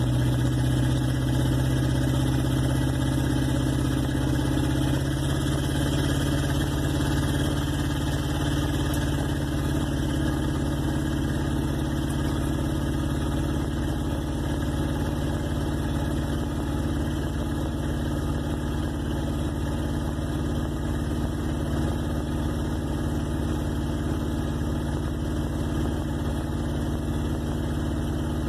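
Engine of a 1958 Plymouth Suburban running at a steady cruise, heard from inside the car, with no exhaust system or muffler fitted yet. The engine note holds steady throughout.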